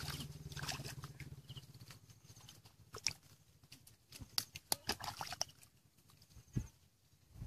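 Hands squelching and slapping in wet mud and shallow water: scattered short wet smacks and splashes as the mud is dug and scooped.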